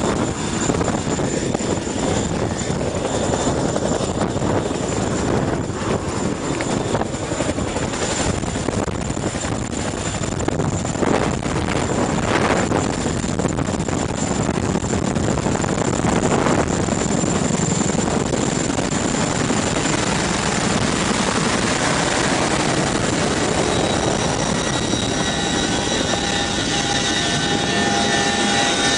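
CH-47 Chinook helicopter running on the ground, its tandem rotors and turbine engines a loud, steady wash of noise. Near the end, steady whining tones from the machinery come in as the sound moves into the cabin.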